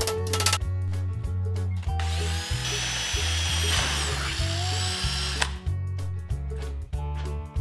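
A power drill whines for about three seconds while drilling through galvanised sheet steel, over background music.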